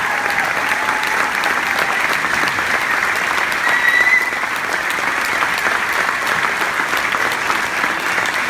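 Audience applauding steadily, with a short high whistle about four seconds in.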